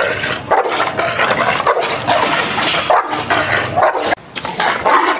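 A large bulldog-type dog barking over and over, with a short break about four seconds in.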